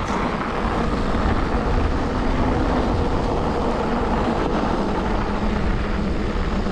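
Schwalbe Ice Spiker Pro studded bicycle tyres rolling steadily over packed snow, giving a continuous rushing noise with a faint hum, mixed with wind on the microphone.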